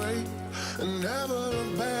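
Background music: a song with a sung melody over steady held accompaniment notes.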